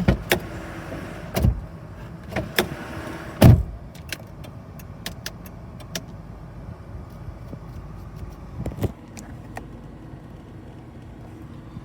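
Hands knocking, pressing and tapping on the Holden VT Commodore's interior plastic trim to check for rattles and loose panels. Several hard knocks come in the first few seconds, the loudest about three and a half seconds in, with a rubbing hiss between them. Scattered light clicks follow, with one more knock near the end.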